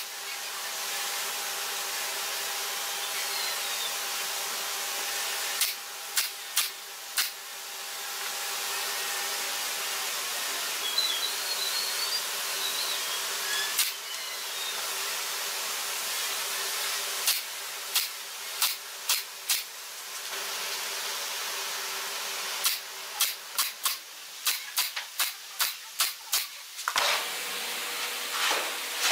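Pneumatic nail gun firing into a wooden frame through plastic mesh: sharp shots in quick runs of a few per second, with pauses between runs, over a steady hiss.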